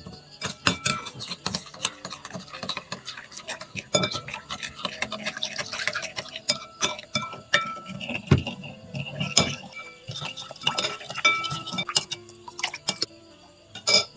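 Metal spoon stirring sauce in a ceramic bowl, clinking and scraping against the bowl in quick, irregular taps, some strikes leaving a brief ring from the bowl.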